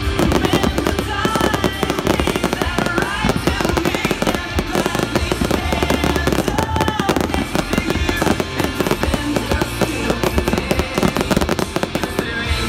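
Fireworks display: a rapid, unbroken run of aerial shell bursts and crackling, many bangs a second, over loud music.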